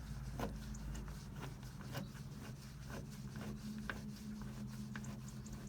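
Faint, irregular clicks and taps from handling the car door handle and the tool while securing the handle, over a steady low hum.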